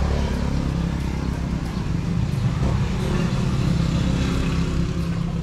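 A small engine idling steadily nearby, a low, even hum.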